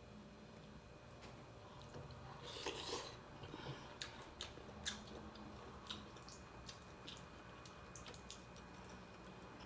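A person eating seafood boil: faint wet chewing and mouth smacks with scattered short clicks, busiest around three seconds in.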